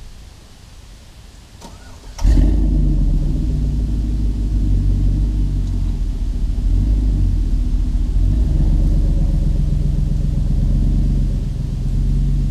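An SUV's engine starting about two seconds in, then running with a steady low rumble right beside the exhaust as the vehicle moves off; it fades near the end as it drives away.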